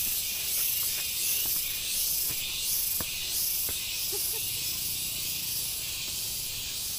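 A chorus of cicadas: a high-pitched buzzing hiss that swells and fades about twice a second.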